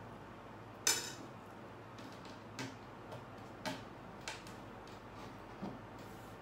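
Spoon and fork clinking against a dinner plate while eating: one sharp clink about a second in, then four fainter clicks spread over the next few seconds.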